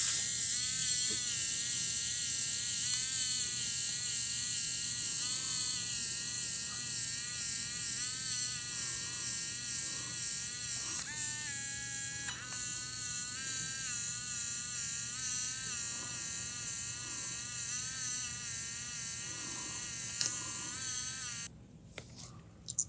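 PIKA 3D printing pen's filament feed motor running, sped up, as a high-pitched, wavering electric whine. It cuts off suddenly near the end.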